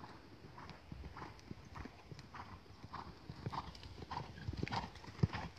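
A young mare's hooves beating on a sand arena under a rider, in an even rhythm of about one stride every 0.6 seconds, with one sharper thud near the end.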